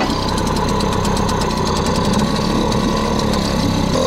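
Small outboard motor on an inflatable dinghy running steadily at slow trolling speed.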